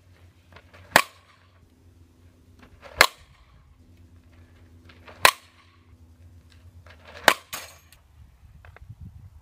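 Softball bat striking pitched balls: four sharp cracks about two seconds apart, each with a short ring.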